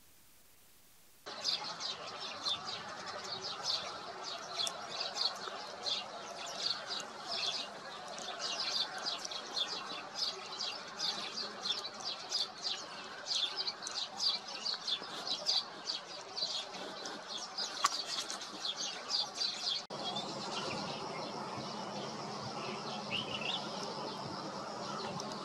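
Wetland birds calling in a dense chorus of quick high chirps and chatter, beginning about a second in. About twenty seconds in the sound changes to a steadier background with only a few calls.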